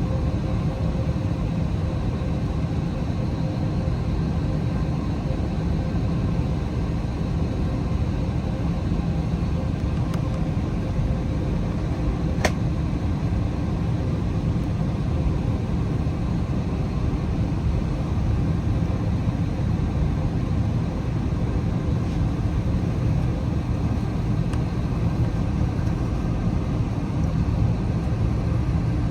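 Steady low roar of a jet airliner's engines and airflow heard from inside the passenger cabin, with a faint steady hum. A single sharp click about twelve seconds in.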